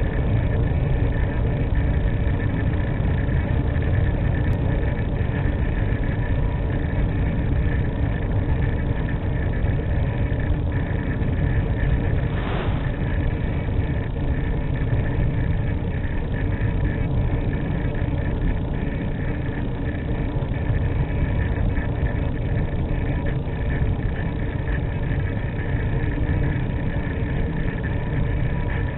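Steady rushing noise with a constant hum, picked up by the small onboard camera of an E-flite Mystique RC glider in flight, with one brief crackle about halfway through.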